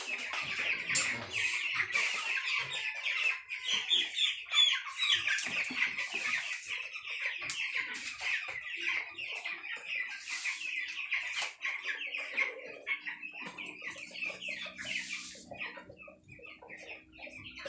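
A flock of caged broiler chickens peeping and cheeping in a dense, continuous chorus of short high calls. The calling thins out over the last few seconds, and a faint low hum joins about twelve seconds in.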